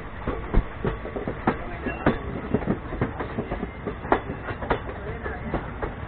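Moving passenger train heard from a coach window: wheels clicking over the rail joints, a sharp click about every half second, over a steady running rumble.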